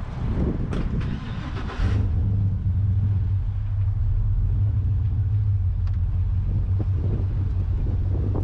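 A nearby heavy-equipment engine running steadily with a low drone, which comes in strongly about two seconds in after a brief burst of rushing noise.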